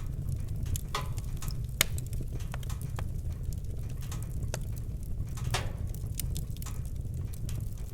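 Wood fire burning in a fireplace: a steady low rumble of flames with irregular sharp crackles and pops, a loud one about two seconds in and another near the middle.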